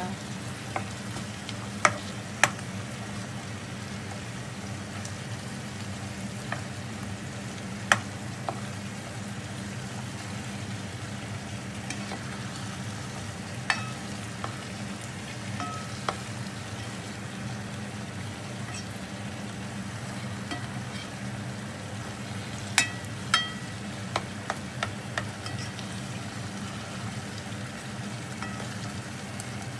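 Chicken pieces sizzling in a pot as they are stirred and turned with a plastic spoon, with scattered sharp clicks of the spoon against the pot.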